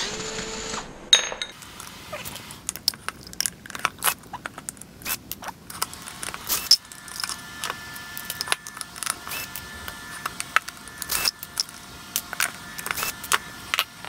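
Small steel nuts, washers and bolts from an aircraft wheel clinking and rattling as they are handled and set down on a workbench, in many quick irregular clicks. A cordless screwdriver whirs briefly at the very start.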